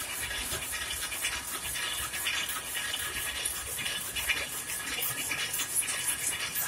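Rapier loom weaving at speed: a steady, rapid mechanical clatter of beating and shuttling parts with a high metallic rattle.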